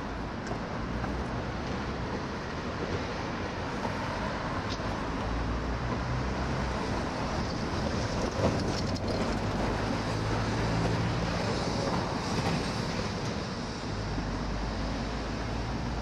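Steady rumble of city street traffic, with a single brief knock about halfway through.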